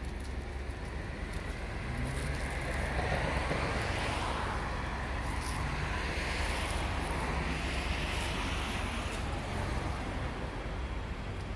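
A car passing by, its road noise swelling over a couple of seconds, staying up for several more, then fading, over a steady low rumble.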